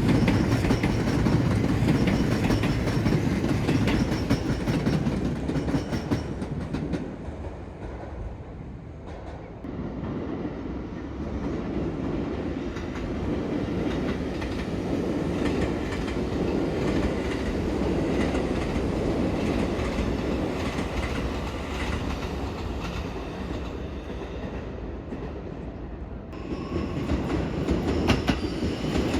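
Seibu Railway electric commuter train running past on the tracks, its wheels clacking over the rail joints. The rumble eases off about a third of the way through, then builds again and is louder near the end.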